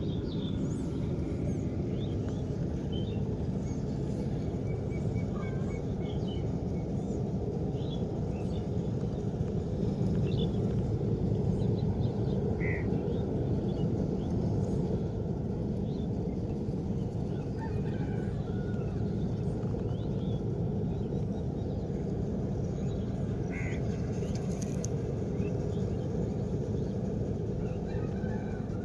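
A steady low rumble with scattered short bird calls, a couple of them louder, about a third of the way in and again past the middle.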